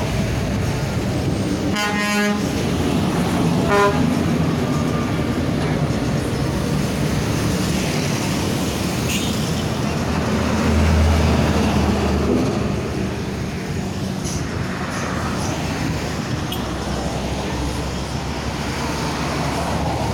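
A bus's deep ship-style air horn ('klakson kapal laut') blowing one low, steady note for about two seconds near the middle, over continuous road traffic noise. Two short, higher horn toots sound about two and four seconds in.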